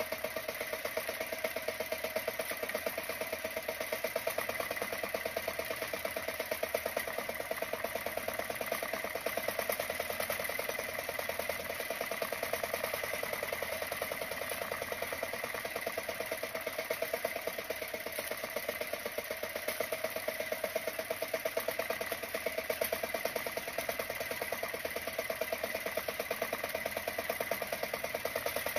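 Small outrigger fishing boat's engine running steadily at a constant speed, with an even rapid beat.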